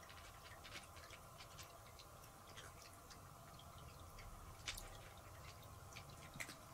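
Near silence with faint, irregular small clicks and ticks from a cat stepping about and nosing in a fleece cat bed, the loudest two about two-thirds of the way in and near the end.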